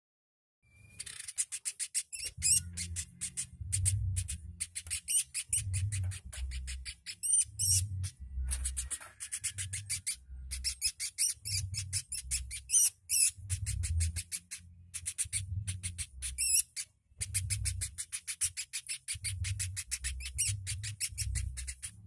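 Small woodpecker calling in rapid, high-pitched rattling trills: quick runs of sharp notes repeated again and again with short gaps, a few with upward-sweeping notes. Low thumps recur underneath.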